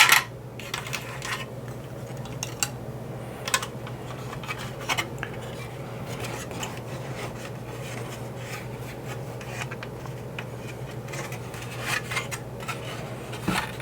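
Scattered clicks and light knocks of old hard plastic toy parts being handled and pulled apart as a vintage G.I. Joe Skystriker jet is taken down, with a steady low hum underneath. The clicks come every second or two, a little louder near the start and again near the end.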